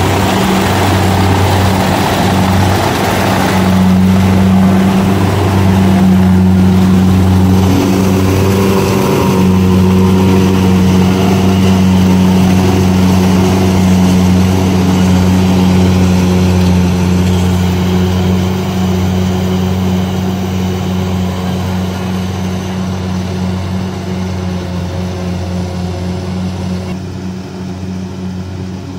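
Kubota DC-70 rice combine harvester running steadily as it cuts and threshes rice, a constant low engine hum. It grows gradually fainter over the last ten seconds as the machine pulls away.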